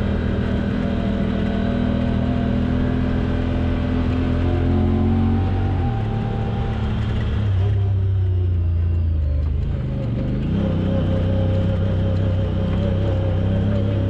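Off-road vehicle's engine running while driving over sand trails. Its pitch drops about six seconds in and it eases off for a couple of seconds, then it picks up again about ten seconds in.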